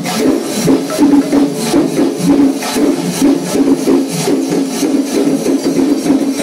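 Percussion music with sharp metallic strikes, cymbals or a tambourine-like jingle, at about three a second over a dense pitched drone.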